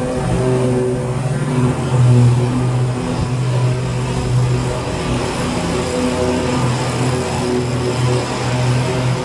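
BigDog Trooper stand-on mower running while cutting tall weeds: a steady engine hum over a wide hiss from the spinning blades and grass, the engine note fading and returning a few times.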